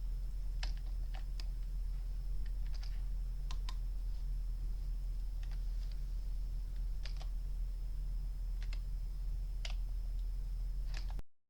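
Scattered clicks of a computer keyboard and mouse, about a dozen at irregular intervals, over a steady low hum and a faint high whine. The sound cuts out to dead silence just before the end.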